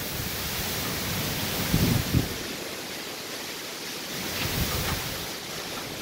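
Hurricane wind and driving rain: a steady rushing hiss, with gusts buffeting the microphone about two seconds in and again a little past the middle.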